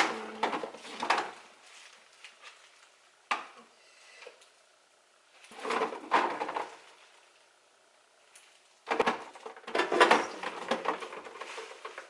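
Knocks and clatter of jars, bottles and food containers being handled and set down while a refrigerator is emptied, coming in a few separate bursts with quiet between.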